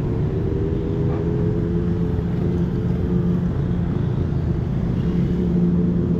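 City street traffic: a motor vehicle engine running nearby with a steady low hum over general traffic rumble.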